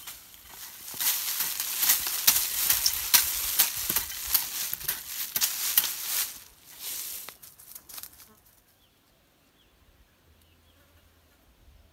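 A hand hoe blade scraping and chopping through soil and weeds, a rapid run of rough scrapes and sharp hits that stops about eight seconds in, leaving only faint short chirps.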